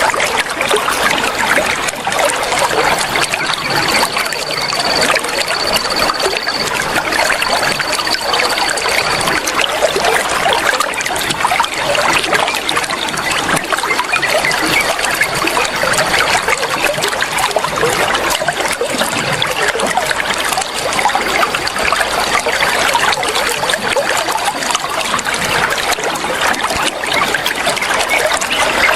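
Running water flowing steadily, with no break or change.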